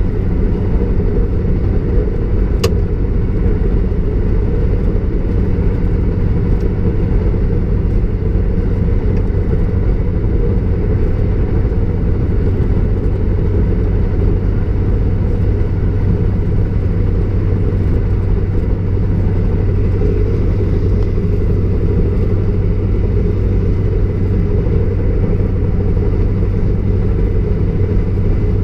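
Class 153 diesel railcar running at speed, heard from inside its rear cab: a steady low rumble of wheels on rail and the underfloor Cummins diesel engine, with a steady hum. A single sharp click comes about two and a half seconds in.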